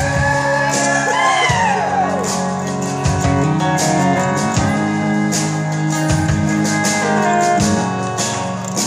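Live band playing an instrumental passage of a slow country ballad: steady bass and drums under a guitar fill whose notes bend about a second in.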